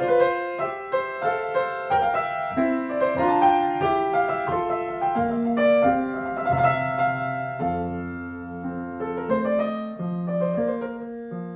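Grand piano played at a slow pace: single melody notes following one another over held lower notes, with a deep bass note joining about halfway through.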